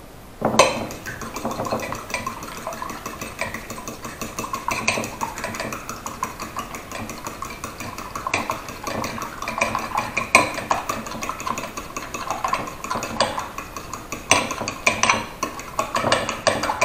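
Fork beating eggs in a ceramic bowl: fast, uneven clicking and scraping of the fork against the bowl, with a louder knock about half a second in.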